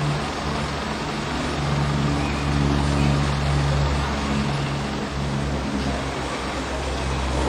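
Steady low engine drone of a running motor vehicle, with a constant hum over a noisy rumble.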